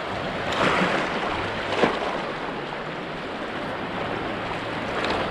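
Sea surf washing against a rocky shore, a steady rush with two brief louder swells in the first two seconds.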